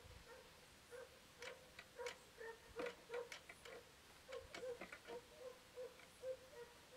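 A dog barking over and over at a steady pace of about two barks a second, faint, with a louder run of barks in the middle.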